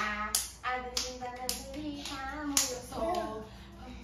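Hands clapping about five times at uneven spacing, over a young child's voice.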